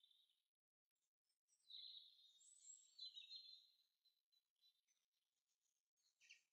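Near silence, with faint high-pitched bird chirping through the middle.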